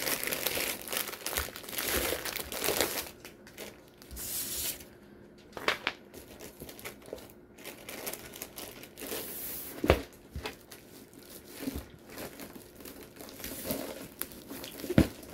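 Clear plastic wrapping crinkling as a large rolled diamond-painting canvas in its bag is handled, most busily in the first few seconds. A few sharp knocks break in, the loudest about ten seconds in and another near the end.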